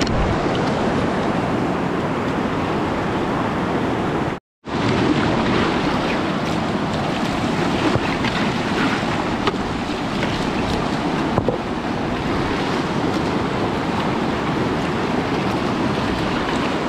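Fast-flowing river water rushing steadily, the stream still running high after a flood. The sound cuts out for a moment about four and a half seconds in.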